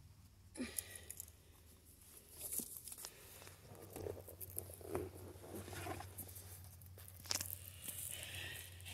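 Faint rustling and scattered clicks of handling as a leash is clipped back onto a cat's harness, over a low steady hum.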